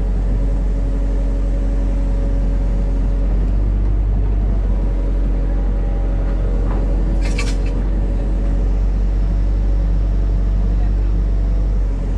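Hitachi hydraulic excavator's diesel engine running at a steady speed, with a brief sharp clank about seven seconds in.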